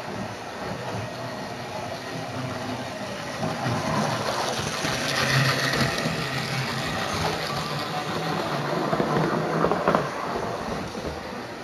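Model railway train running on the track, its motor humming and wheels rolling, growing louder toward the middle and fading away near the end.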